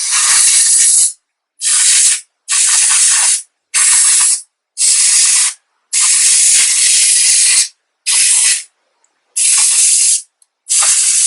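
Can of compressed air (air duster) sprayed in about nine short bursts, each half a second to a second and a half long, blowing the dust out of a PS4's cooling fan.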